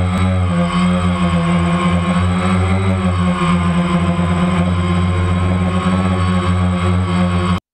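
DJI Phantom quadcopter's electric motors and propellers running steadily, picked up by the camera mounted on the drone: a loud, even multi-tone hum that cuts off suddenly near the end.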